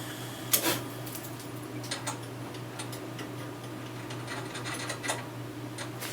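Scattered light clicks and taps of tools or metal parts being handled, the sharpest about half a second in, over a steady low machine hum.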